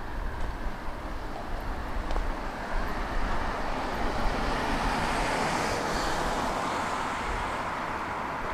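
A car driving past on a city street: its tyre and engine noise swells to a peak about halfway through and then fades, over a low background traffic rumble.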